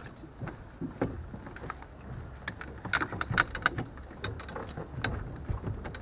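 Irregular light clicks and knocks of a landing net with a hooked fish in it being handled against the side of a small boat, thickest about halfway through, over a steady low rumble.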